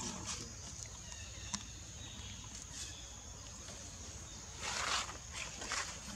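Dry fallen leaves crackling and rustling under a baby monkey squirming on its back, with the loudest rustle near the end, over a steady high-pitched whine.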